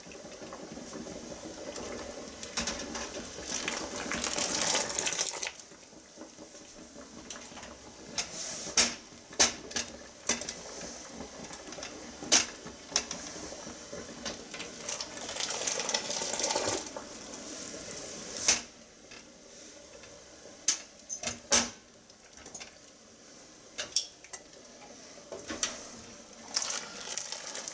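Hot sterilized glass mason jars lifted from a canner pot with a canning jar lifter: water pours out of a jar back into the pot twice, between sharp clinks of glass and metal as the jars are gripped and set down.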